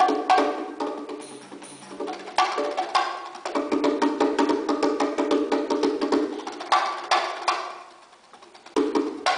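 Solo hand-drum playing: rapid, dense strokes on hand drums with sharp, woody attacks. The rhythm thins out briefly about a second and a half in and again near the end before picking back up.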